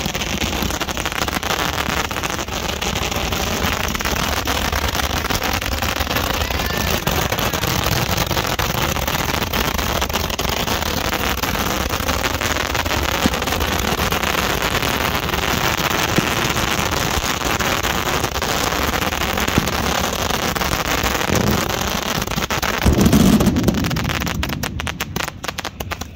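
Handheld multi-tube 'Gatling gun' Roman candles firing together, a dense, continuous crackle of rapid shots. A louder low burst comes about 23 seconds in, and near the end the firing thins to separate pops as the candles finish.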